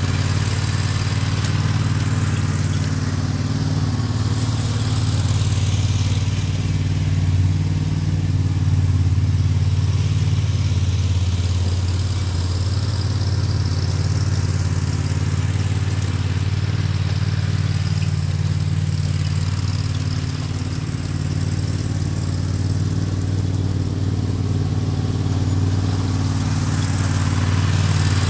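Toro TimeCutter zero-turn riding mower and its two towed 22-inch push mowers running under mowing load, a steady engine drone. It fades slightly as the rig moves off mid-way and grows again as it comes back near the end.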